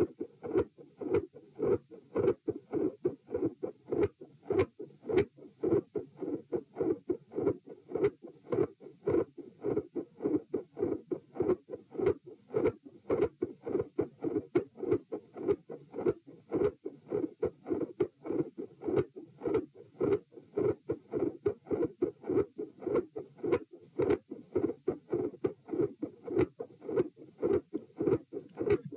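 Human heart sounds recorded at the chest, beating in a steady rhythm. Each beat has a quiet first heart sound (S1) followed by a loud second heart sound (S2) with a fixed split.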